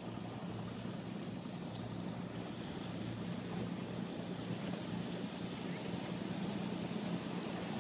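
Steady low rush of water and wind around a Hobie Adventure Island sailing kayak trimaran under way, with a faint steady drone underneath.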